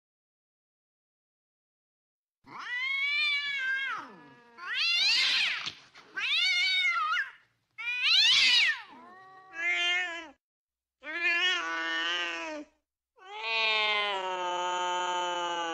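Domestic cat caterwauling in mating calls: a string of about seven yowls, each rising and falling in pitch, starting a couple of seconds in, the last one long and steady.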